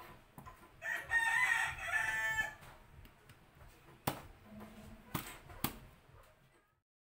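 A rooster crows once, a long call starting about a second in and the loudest sound here. Later come three sharp knocks of a kitchen knife chopping cassava on a cutting board.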